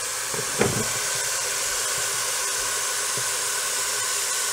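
Kitchen tap water running in a steady stream into a large metal pot of chopped red cabbage. A single knock sounds about half a second in.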